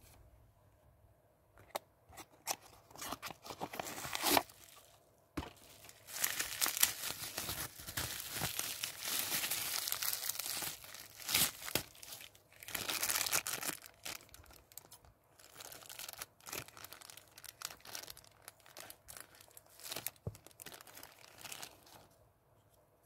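Thin clear plastic packaging bags torn open and crinkled by hand, in irregular rustling bursts, loudest in the middle.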